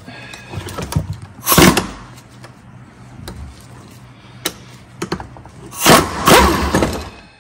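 Impact wrench hammering on a brake caliper pin bolt in two bursts, a short one about a second and a half in and a longer one of about a second near the end, breaking loose the very tight 14 mm bolts while a 15 mm wrench holds the caliper pin. A few light metal clinks from the wrench come between the bursts.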